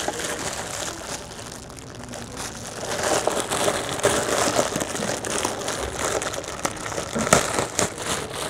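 Packaging crinkling and crackling as a steam vaporizer is unwrapped. It is quieter at first and denser from about three seconds in, with scattered sharp clicks.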